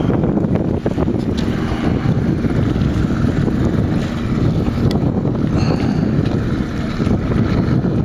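Wind buffeting the microphone: a steady, dense low rumble.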